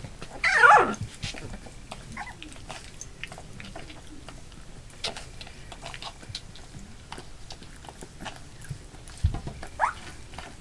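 Labrador retriever puppies, nearly three weeks old: one gives a loud yelp that falls steeply in pitch about half a second in, and a shorter squeal comes near the end. Small soft clicks run between the cries.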